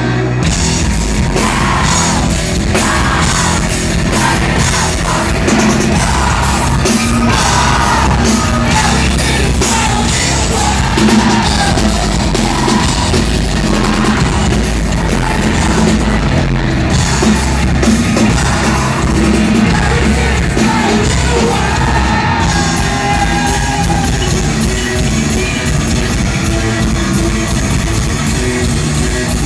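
Live rock band playing loud, with drums and a singer's sung and shouted vocals, recorded from the crowd on a phone.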